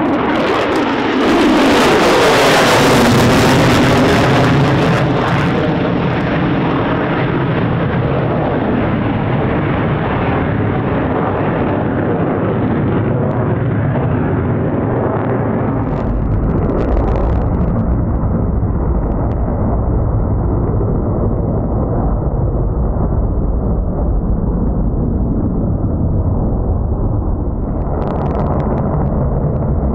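F-35 Lightning's single jet engine passing overhead: loud, with a sweep falling in pitch as it goes by about a second in. The jet noise then continues steadily as it climbs away, with a deeper low rumble from about halfway through.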